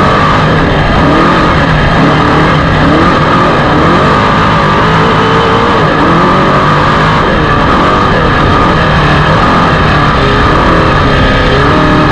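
Off-road race vehicle's engine running hard and loud, its revs rising and falling over and over as the throttle comes on and off.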